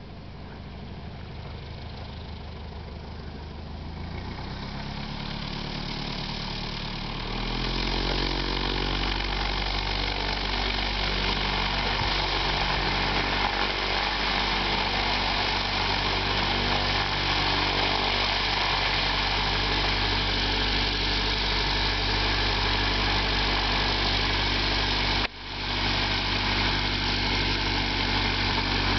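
Cessna 172's piston engine and propeller running at low taxi power, growing louder over the first several seconds as the engine note steps up a little in pitch, then holding a steady drone. The sound cuts out for a moment near the end.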